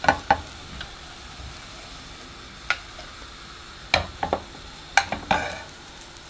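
Duchess potato cakes sizzling in butter in a non-stick frying pan, a steady frying hiss. A metal palette knife clicks and scrapes against the pan several times, at the start and then from the middle on.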